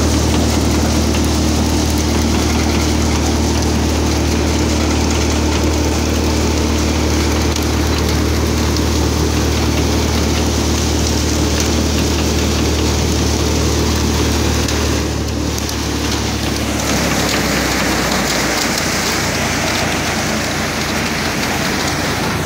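Tractor-driven grain thresher running at work: a steady low drone under a continuous, even hiss and rattle of the crop going through the machine. The sound shifts about sixteen seconds in, the low hum changing and the hiss growing brighter.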